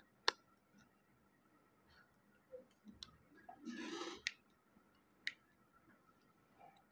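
Faint handling sounds: a few sharp clicks, about four in all, and a short rustle around four seconds in.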